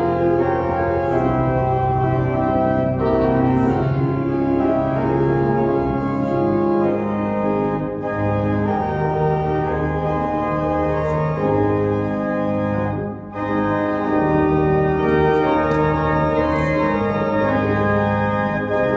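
Church organ playing a hymn in full sustained chords that change every second or so, with a brief dip in volume about two-thirds of the way through.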